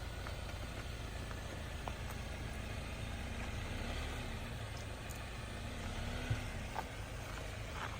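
Jeep engine at low revs as it crawls slowly over a rocky off-road trail, the engine note rising briefly twice, with a few light knocks and clicks.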